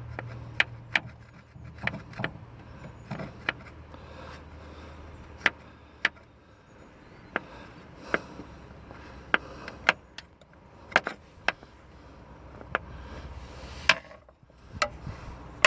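Screwdriver scraping old gasket off the seal mating surface on an excavator engine: irregular sharp clicks and scrapes of the tip against the metal.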